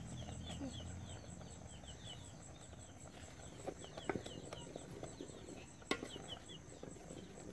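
Quiet outdoor ambience with a bird's short chirps repeated in quick runs of four or five, and two sharp knocks of a wooden spoon against a metal cooking pot during stirring, about four and six seconds in.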